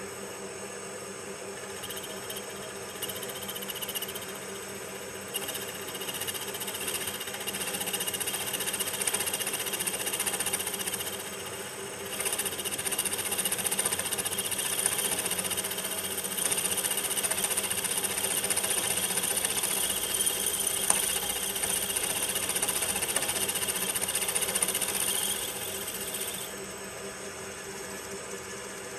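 Milling machine spindle running while a slot drill is fed gently into a metal locomotive frame plate, re-drilling a hole that was slightly out of position. The cutting noise comes in about two seconds in, eases off briefly near the middle, and stops a few seconds before the end, leaving the steady hum of the machine.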